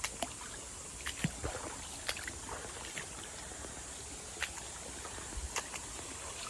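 Irregular footsteps and small knocks along a creek bed, over a steady hiss of running creek water.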